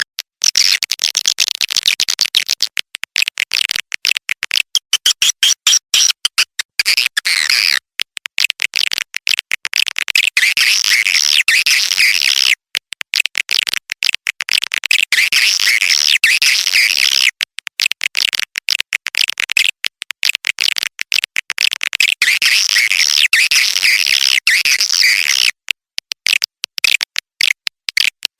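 Swiftlet lure call recording: a dense, high twittering chatter of many swiftlets mixed with chick-like cheeps. It is chopped by many brief silent gaps.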